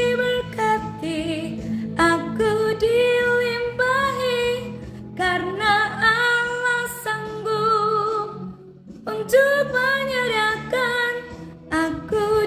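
A woman singing an Indonesian worship song in sustained phrases with vibrato, over a steady backing accompaniment, with short pauses between phrases.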